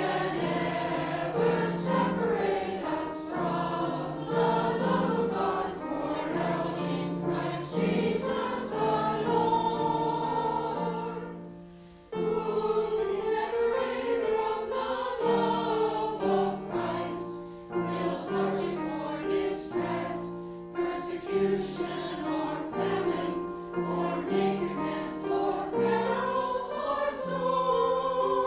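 A choir singing a hymn in held chords. The sound fades away about eleven seconds in, and the next phrase starts sharply a second later.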